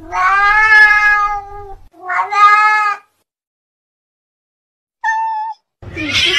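Cat meowing: two long, drawn-out meows back to back, then after a silent gap a single short, higher-pitched mew. A burst of noise begins near the end.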